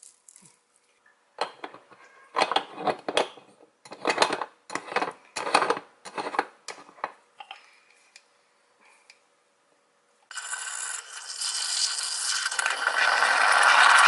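Clusters of metal scraping and clinking as coffee grounds are spooned from a glass jar into a moka pot's filter basket. About ten seconds in, a Bialetti moka pot starts brewing with a steady hiss and gurgle as the coffee comes up, growing louder until it cuts off suddenly.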